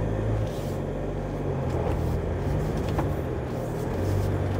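Ford Bronco's engine pulling under load at crawling speed as the Bronco makes a second attempt over a trail obstacle with its rear differential locked: a steady low drone that swells and eases a little.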